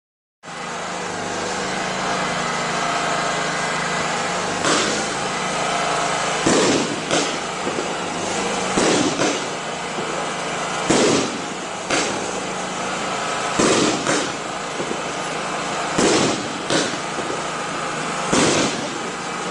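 Ardi Showbox Fascination firework compound, a preloaded multi-shot cake lit once, firing its opening shots. Sharp bangs start about five seconds in and come every one to two seconds, often in close pairs, over a steady background noise.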